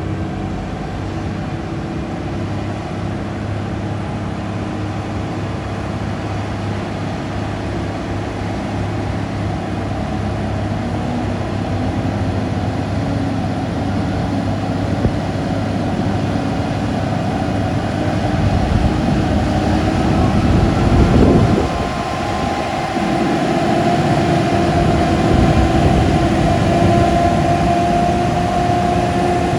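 Heavy truck engine running continuously, its pitch slowly rising through the middle and the sound getting louder, with a brief loud swell about two-thirds of the way through.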